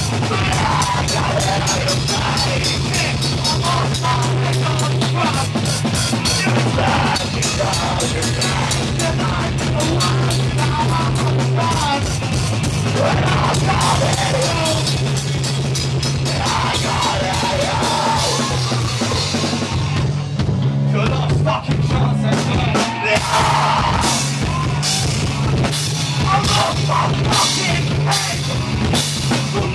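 Live rock band playing loudly: pounding drum kit, distorted electric guitar and bass. There is a brief drop about two-thirds of the way through before the drums come back in hard.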